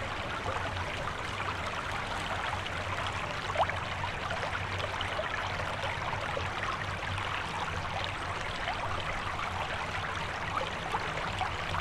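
Small woodland creek flowing, a steady wash of running water.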